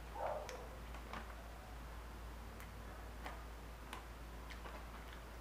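Faint, unevenly spaced clicks and crinkles from handling and eating from a plastic snack pouch of granola clusters, over a low steady hum.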